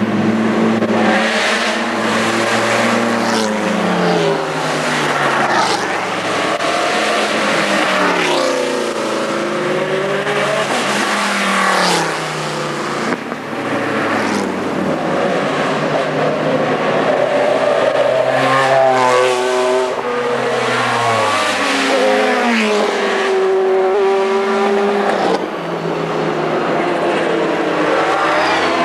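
GT race cars driving past one after another on a public road, engines revving. Their pitch repeatedly climbs as they accelerate through the gears and drops away as they go by.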